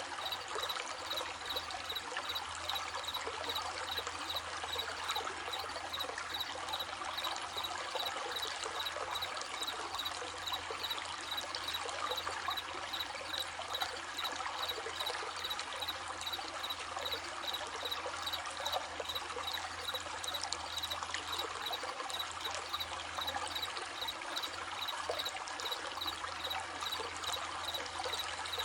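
Running stream babbling steadily, with crickets chirping in a steady high pulsing rhythm over it.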